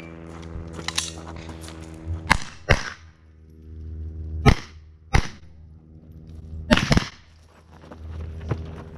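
Rifle shots from a semi-automatic AR-style carbine fired at steel targets: about eight single shots at irregular spacing, including two quick pairs.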